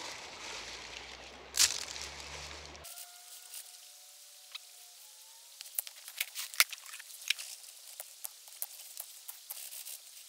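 Stones and gravel clicking and clacking as they are handled in a plastic classifier screen over a bucket, in a string of sharp knocks through the second half. Under the first three seconds is a steady rushing background, which cuts off abruptly.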